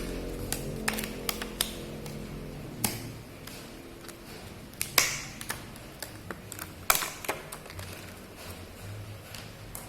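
Scattered sharp clicks and taps of hands opening the plastic packaging of a 2.5-inch SSD, with a low hum fading out over the first three seconds.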